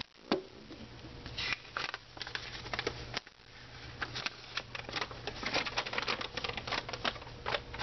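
Unboxing: a cardboard box and bagged parts being handled, with irregular rustling, crinkling and small clicks. A low steady hum runs underneath.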